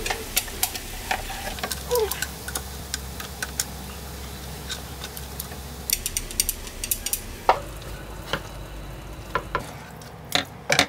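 Pasta and vegetables sizzling in a frying pan as frozen basil pesto cubes are stirred in, with repeated sharp clicks of chopsticks and a wooden spatula against the pan.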